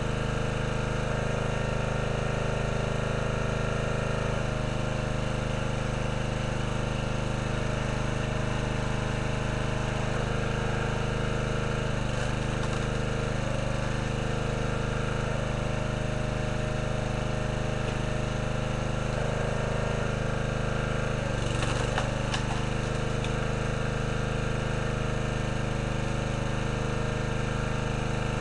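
Small gasoline engine of a hydraulic log splitter running steadily, its note shifting every few seconds as the ram is cycled through logs. A short burst of sharp cracks and knocks comes about three-quarters of the way through.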